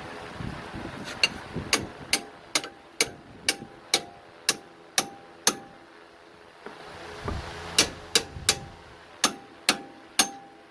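Mallet blows on metal with a ringing note: about ten strikes at roughly two a second, a pause, then about six more. They are knocking a steering linkage joint loose while removing a rack and pinion.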